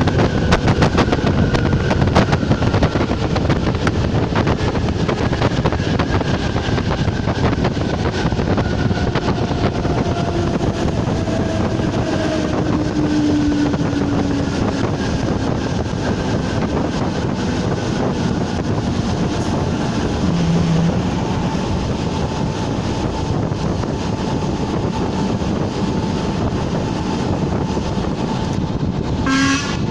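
ČD class 460 electric multiple unit running on the line: steady wheel and rail noise with many short clicks, and faint whining tones slowly falling in pitch. A brief higher squeal comes near the end.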